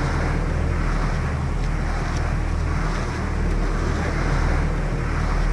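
Steady rushing of a swollen, flooded river, with wind buffeting the microphone and a steady low hum underneath.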